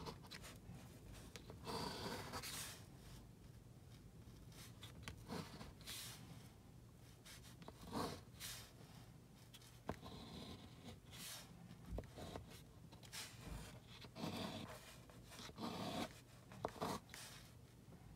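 A large metal coin scraping the scratch-off coating of a lottery ticket: faint, irregular rasping strokes.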